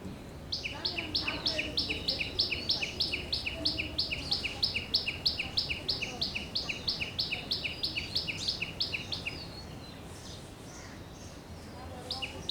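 A songbird calling a rapid, regular two-note phrase, a higher note followed by a lower one, repeated about three times a second for some nine seconds before stopping. It starts again briefly near the end.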